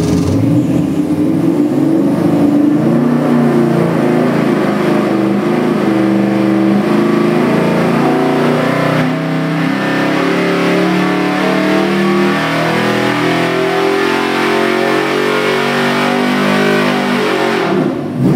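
Ford 347 stroker small-block V8 making a wide-open-throttle dyno pull, its note climbing steadily from just above idle to nearly 5,000 rpm. It drops away near the end as the pull finishes and the throttle closes.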